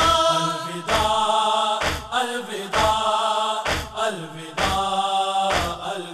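Mourners chanting a Muharram noha in long, held notes, over a regular unison chest-beat (matam) thudding about once a second.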